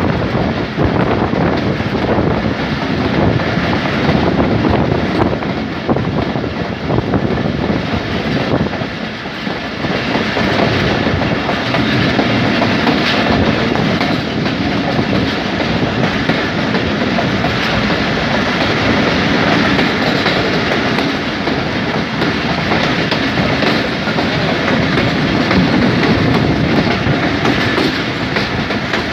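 Passenger train coach running along the track, heard from its open door or window: a steady, loud running noise of wheels on rails, dipping slightly about nine seconds in.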